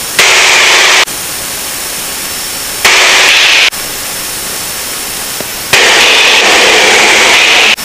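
Cockpit noise of a Lancair Legacy light aircraft in flight, engine and airflow heard as a steady hiss through the headset intercom. The intercom feed cuts in and out abruptly three times, jumping between a loud hiss and a quieter one.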